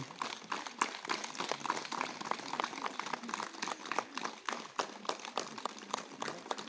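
Audience applause: many quick, irregular claps without a break.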